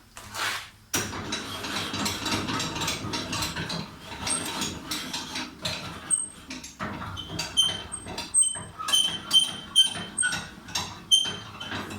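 Table saw's blade-raising mechanism being cranked, making dense, irregular ratcheting clicks, with short high squeaks repeating through the second half.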